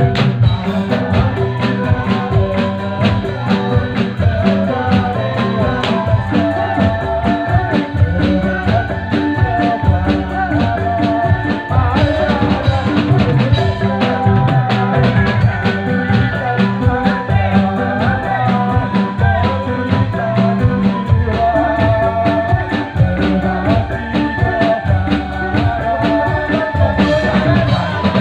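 Live band music: a drum kit keeps a steady, busy beat under keyboard and a wavering melody line.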